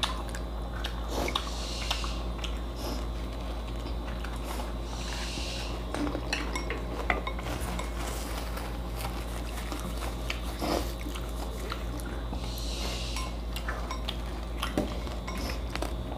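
Chopsticks clicking and tapping against plates and glass bowls of pani as pani puri are picked up and dipped, with bouts of biting and eating in between. A steady low hum runs underneath.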